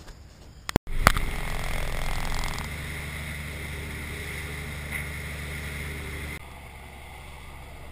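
Dive boat under way: its engine runs with a steady hum over rushing water from the wake. The sound starts abruptly about a second in and drops in level twice.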